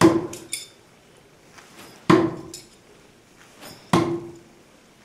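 Throwing knives striking a wooden target three times, about two seconds apart. Each hit is a sharp thunk followed by a short ring of the steel blade, and a couple of light clinks come just after the first.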